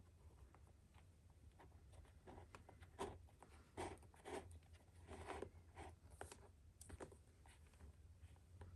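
Faint scraping and rustling of a leather lace being worked through the lacing holes of a leather baseball glove, in short irregular strokes, a few louder ones in the middle.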